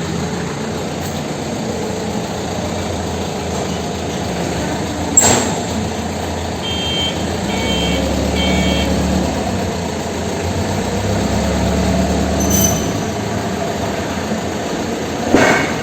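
Hino truck engine running slowly while the truck reverses, with its reversing alarm beeping three times about seven seconds in. A short sharp sound cuts through about five seconds in, and again near the end.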